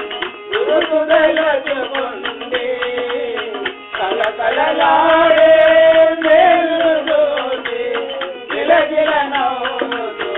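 Telugu devotional bhajan: a voice singing drawn-out melodic phrases, with a long held note about halfway through, over hand-drum percussion.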